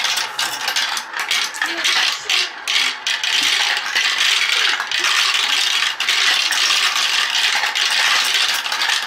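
Marbles rolling and clattering through the plastic tubes and chutes of a Galt marble run: a dense, continuous rattle of small clicks.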